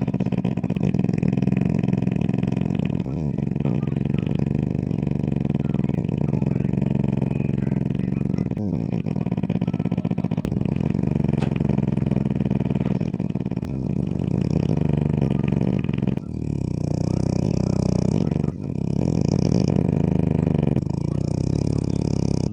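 French bulldog snoring heavily: a loud, continuous low drone with a few brief dips as the breath turns. Its short muzzle makes the breed prone to snoring.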